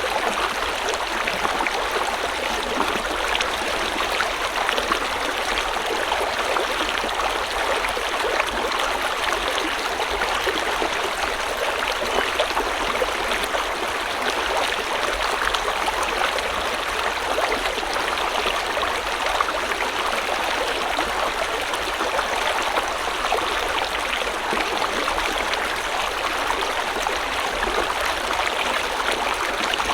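River water flowing and burbling steadily over stones, an even rushing with fine gurgling detail.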